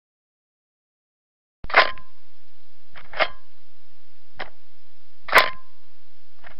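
Camera clicks: about six sharp mechanical clicks at uneven spacing, some with a brief metallic ring, over a steady background hiss and low hum. They start after about a second and a half of silence, and the loudest come about two seconds in and near the end.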